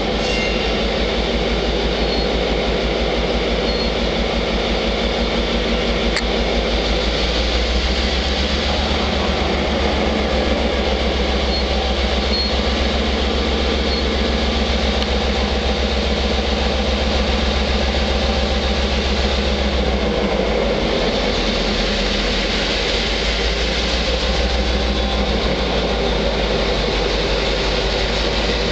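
NMBS class 62 diesel locomotive's two-stroke V12 engine running steadily at low power as the locomotive creeps slowly past with its ballast train. The low engine note shifts slightly about two-thirds of the way through.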